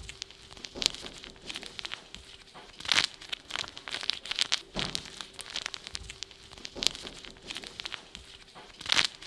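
Irregular rustling and crinkling made for Foley, with sharp clicks scattered through it over a faint steady hum.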